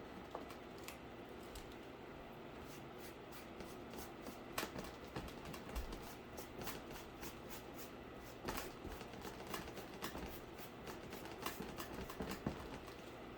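Irregular small clicks, taps and rustling of hands handling and working cardboard.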